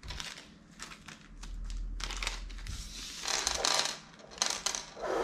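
Small clear plastic bag of hard-drive mounting screws crinkling as it is handled and opened, then a few small metal screws clinking onto a table near the end.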